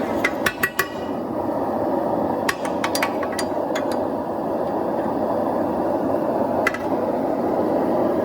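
Hammer blows ringing on steel at the anvil while forging a small anvil: about four quick strikes near the start, about six more a couple of seconds in, and one near the end, over a steady rushing noise.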